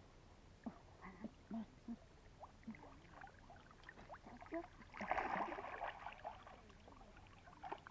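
Water sloshing and splashing with scattered small knocks, and a louder swishing splash about five seconds in that lasts about a second.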